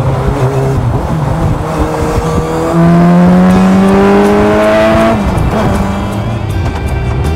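Campagna T-Rex's inline-four motorcycle engine driving by. About a third of the way in it accelerates, rising in pitch and getting louder for a couple of seconds, then its pitch drops sharply.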